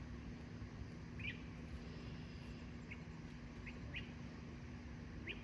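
Bird chirping: about five short, high chirps at irregular intervals, over a low steady background rumble with a faint hum.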